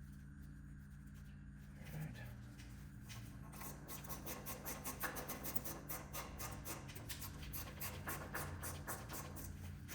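Faint small metal clicks and scrapes, starting about three seconds in and going on irregularly, from hands fitting a turbo drain line and its bolts by hand. A low steady hum sits under them.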